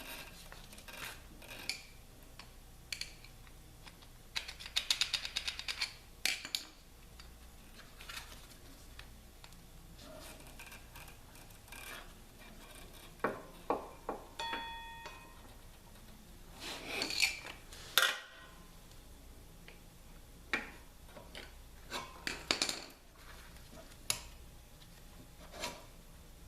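Metal hand tools and motorcycle front-end parts being handled: scattered clicks and knocks, a quick run of rapid clicks about five seconds in, and a brief metallic ring about fourteen seconds in.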